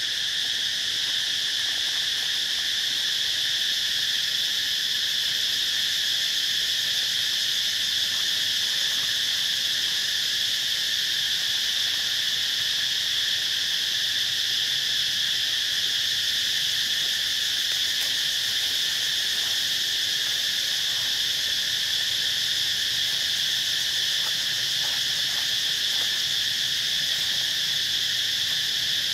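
Steady chorus of insects: an unbroken high drone holding several fixed pitches.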